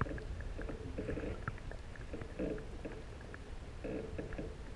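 Underwater sound picked up by a camera just below the surface: a steady low rumble of water, with faint clicks and a few short, muffled voice-like sounds from above the water.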